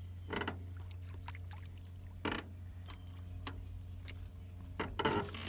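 Several brief knocks and clatters of gear against a small fishing boat, over a steady low hum.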